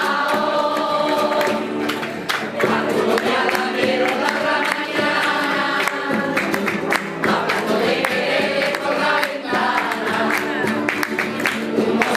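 A women's choir singing together to acoustic guitar accompaniment, with rhythmic hand-clapping.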